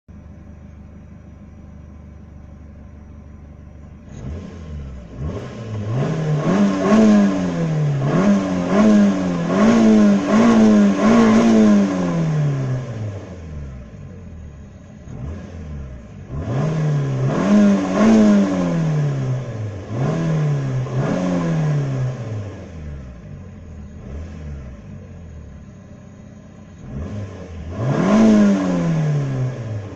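Suzuki Swift 1.3 16V SOHC four-cylinder engine on its stock exhaust, idling and then revved in repeated quick blips. It runs a burst of about six blips, falls back to idle, gives four more, and ends on a single rev near the end.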